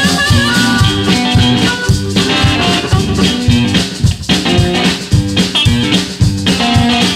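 Background music: an instrumental stretch of a blues-rock song with a steady beat.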